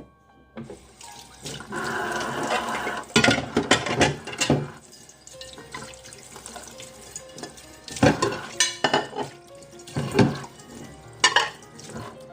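Water running from a kitchen tap as dishes are rinsed, then dishes knocking and clattering in a series of sharp hits as they are handled and set into a dishwasher rack.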